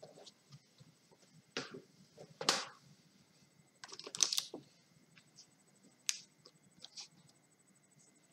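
Handling noise: a few scattered clicks and rustles as an open paperback and the camera are handled, the loudest about two and a half and four seconds in, over a faint steady high-pitched whine.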